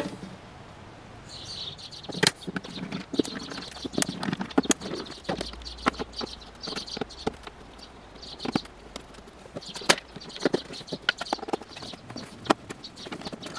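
Scattered clicks, taps and scrapes of hand work on a wall-mounted EV charger: a screwdriver undoing its terminal and casing screws while the plastic casing and wires are handled.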